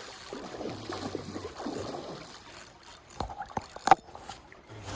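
Faint voices over a steady background of stream water, then a handful of sharp clicks, the loudest about four seconds in.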